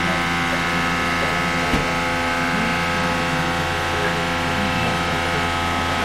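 Loud, steady hum and rush of a ramen shop kitchen's equipment, with several steady tones held throughout. A single light knock comes a little under two seconds in.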